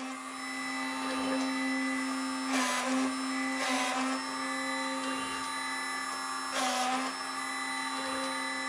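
Spindle motor of a CNC3018-based PCB drilling machine running with a steady hum. Three short bursts of the drill bit plunging into the circuit board come about 2.5 s, 3.5 s and 6.5 s in, and the spindle's pitch dips slightly under each load.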